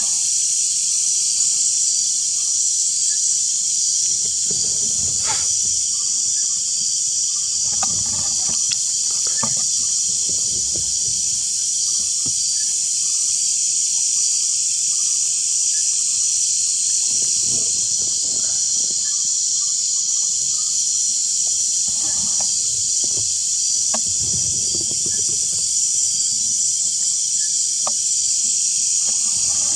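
Steady, high-pitched chorus of night-calling insects, with occasional soft low bumps.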